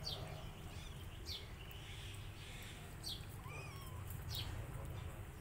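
Birds chirping: short, high, falling chirps that repeat about every second and a half, with one brief wavering call a little past the middle, over a steady low hum.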